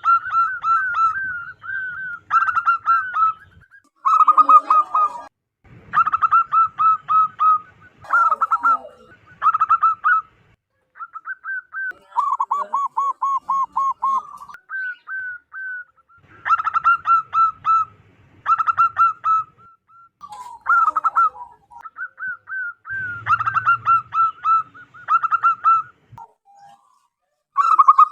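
Zebra dove (perkutut) cooing: loud phrases of rapid staccato notes, repeated with short pauses, with a run of evenly spaced, slightly lower coos midway through.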